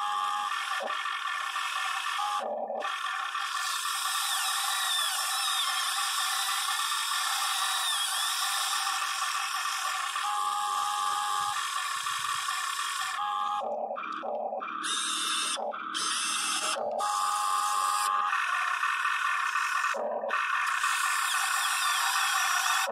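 Electric gear motors of a Huina 580 RC excavator running with a high whine as it works its ripper attachment, cutting out and restarting briefly several times as the controls are moved, most often in the second half.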